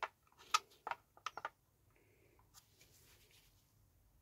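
Light clicks and taps of a hand tool and plastic parts being handled while a screw is driven into a plastic door-mirror assembly: a quick cluster of five or six in the first second and a half, then one more.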